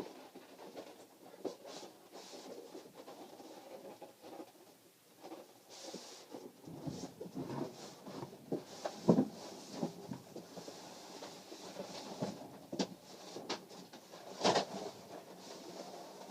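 Rustling and scraping of a cardboard box and packaging as an airsoft rifle is worked out of it, with scattered sharp knocks and thumps of handling, the loudest about nine and fourteen seconds in.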